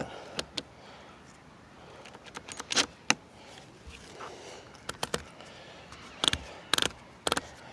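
Scattered sharp clicks and knocks of tools and hard plastic parts being handled, some a second or more apart and some in quick pairs.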